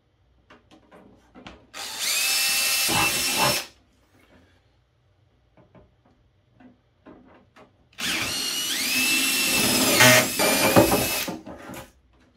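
Cordless drill boring into the wall of a Bud Industries weatherproof enclosure in two bursts, a short one about two seconds in and a longer one from about eight seconds. Each burst starts with a rising whine as the motor spins up. Light clicks and handling knocks come between the bursts.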